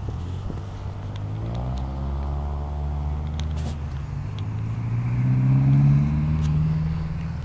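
A car engine accelerating on the road. Its pitch rises, falls back once, then rises again and is loudest about six seconds in, like an upshift.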